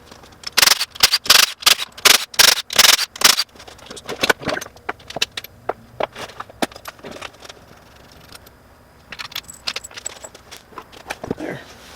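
Metal hand tools and engine parts clinking and rattling as they are handled: a quick cluster of loud clinks in the first few seconds, then scattered lighter clicks.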